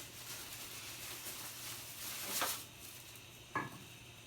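Kitchen cooking sounds: a steady faint hiss, a short scraping swell about two and a half seconds in, and a single sharp knock a second later.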